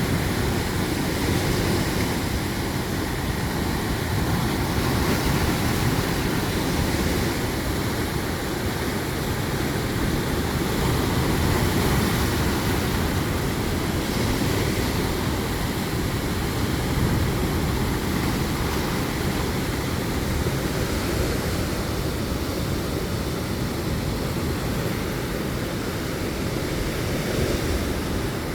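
Sea waves surging and washing in, with wind rumbling on the microphone: a steady rushing that swells and eases slightly now and then.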